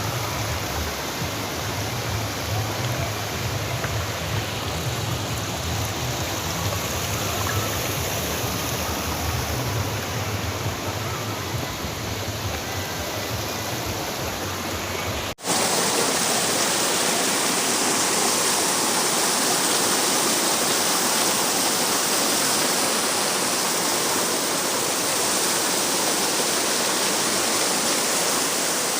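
Water rushing steadily down a waterfall. About halfway through it cuts abruptly to a brighter, hissier rush with less low rumble.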